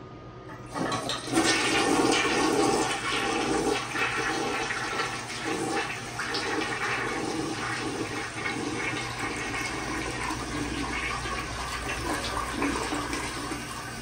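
American Standard Plebe toilet flushing: a loud rush of water starts suddenly about a second in, then eases into a quieter, steady running of water.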